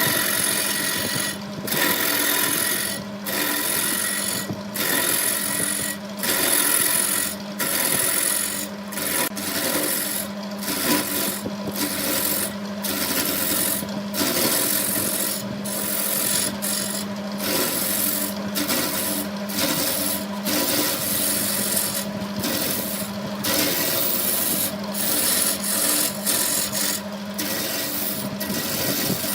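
Wood lathe running with a steady motor hum while a turning tool scrapes and cuts the spinning wood in repeated passes, the scraping breaking off briefly about once a second between strokes.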